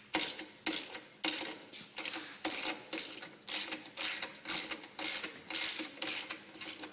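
Ratchet wrench clicking in repeated short strokes, about two a second, as a 9/16 socket or gear wrench backs out the exhaust bracket's 3/8 bolt.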